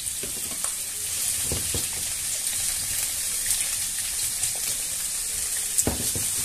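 Onion, peppers and cubed chorizo sizzling steadily in hot olive oil in a frying pan. A few knocks sound as the pan is handled and stirred with a plastic spatula, the loudest about six seconds in.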